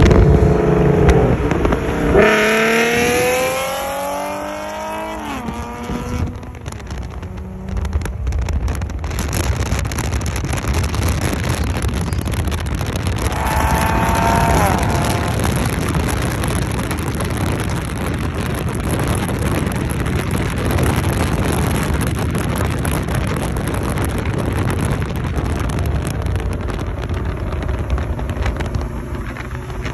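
Lexus IS350's 3.5-litre V6 running loud through aftermarket PPE headers and a custom exhaust with no mufflers. A sharp rev about two seconds in rises and falls off, then comes a steady droning run with a shorter rev around the middle.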